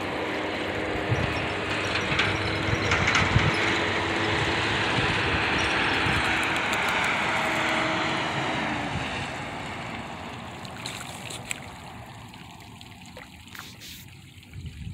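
A distant engine drone: a steady rushing noise with a faint low hum, fading away over the last few seconds.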